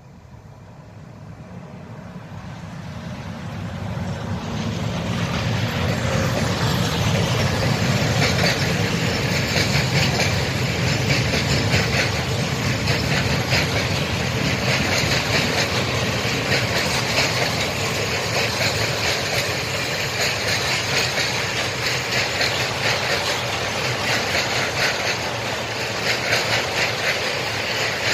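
Electric locomotive hauling a freight train of open wagons, growing louder over the first few seconds as it approaches. The wagons then roll steadily past, their wheels clattering rhythmically over the rail joints.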